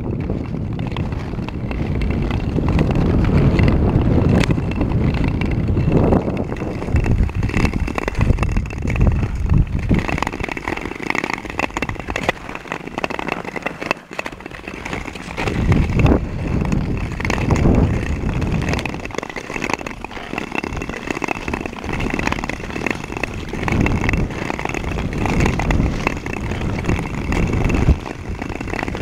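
Ice skates scraping and gliding over clear lake ice in repeated strides, over a steady low rumble of wind on the microphone.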